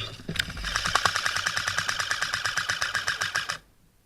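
Airsoft electric gun firing a long full-auto burst: a rapid, even rattle of shots that cuts off suddenly about three and a half seconds in.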